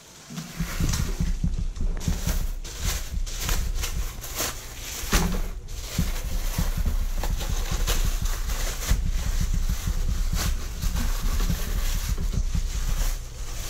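Thin plastic bag crinkling and rustling in quick, irregular crackles as it is pulled over a raw salted picanha and wrapped tight around the meat, over a steady low rumble.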